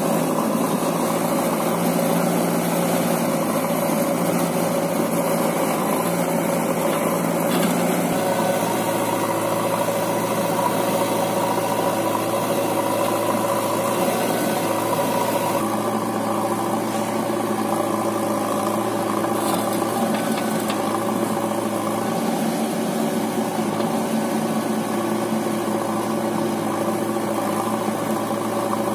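Diesel engines running steadily: a Sonalika DI60 tractor's four-cylinder engine idling and a JCB backhoe loader's engine working as it loads mud. The engine note shifts about 8 seconds in and again about 16 seconds in.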